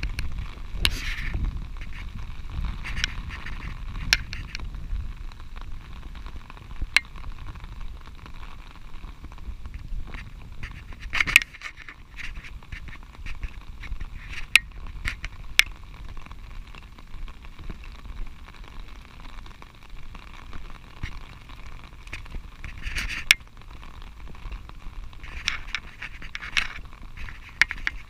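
Raindrops ticking irregularly on a fabric umbrella overhead, with patches of rain hiss. Wind rumbles on the microphone in the first couple of seconds.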